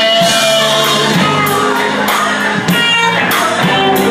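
Band music in a soul-blues style, with a lead voice or instrument line held over the band and no sung words.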